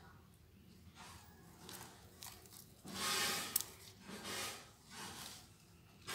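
Pearl beads and clear beading line being worked by hand: soft rustling and rubbing in several short swells, with a sharp click of a bead about three and a half seconds in.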